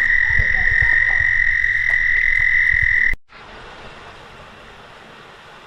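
A chorus of frogs calling in one loud, steady, high trill that holds a single pitch, with low thumps on the microphone. It cuts off abruptly about three seconds in, leaving the quieter even rush of a creek.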